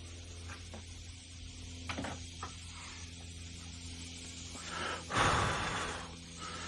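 A person's long, breathy exhalation about five seconds in, over a steady low electrical hum and a couple of faint clicks.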